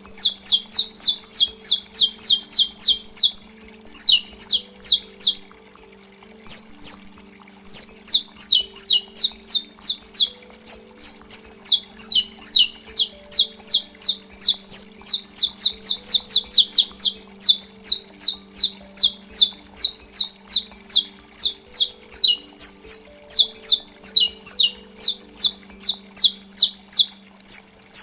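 Saffron finch (canário-da-terra) singing its 'estalo' song: long runs of loud, sharp, clipped notes repeated about three a second, briefly faster in places, broken by a couple of short pauses.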